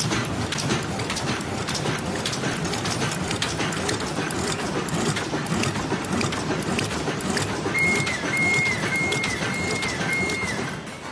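Automatic laminated bubble mailing bag making machine running at production speed: a fast, busy mechanical clatter of many rapid ticks over a running hum. Near the end a high tone sounds five times in a row, each dropping in pitch as it ends.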